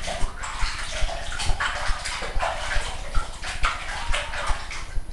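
Water splashing and sloshing in a plastic basin as hands scrub and rinse a pet's wet fur during a bath, in uneven small splashes.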